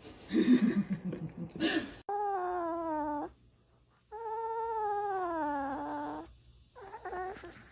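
A chihuahua howling: two long, held howls, the second sliding down in pitch at its end, with a few short yips after them. The first two seconds hold a rougher, lower noise.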